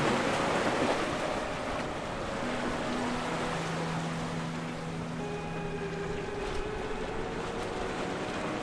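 Large sportfish yacht running through rough inlet water: a rush of bow spray and breaking waves, strongest in the first second, with a steady low hum underneath from about two and a half seconds in that rises slightly in pitch near the end.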